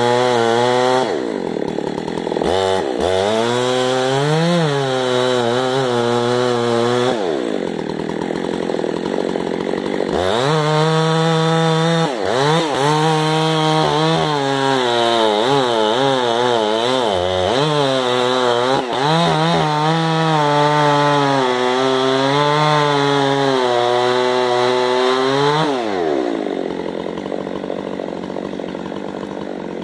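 Two-stroke chainsaw cutting into a large old-growth fir log, its engine speed wavering as the chain loads and unloads in the cut. It drops back toward idle about seven seconds in, revs up into the cut again a few seconds later, and drops to idle again near the end.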